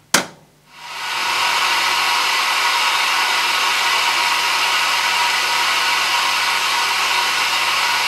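A sharp click as the Zanussi ZJ1217 washing machine is started, then, within about a second, a loud, steady hiss of water rushing in as the machine fills: a rather noisy fill.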